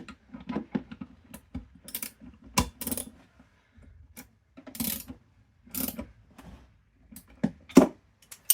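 Irregular small metallic clicks and taps with a few short scratchy strokes: hand tools and the spark plug being handled and worked on during a spark plug service of a small petrol generator. The loudest click comes near the end.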